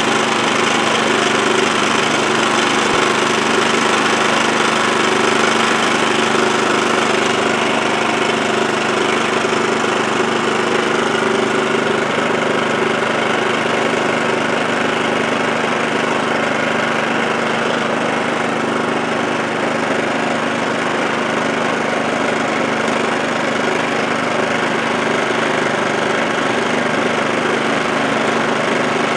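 WEN inverter generator's small gasoline engine running steadily on a test run, just after a high-altitude conversion kit was fitted to its carburetor.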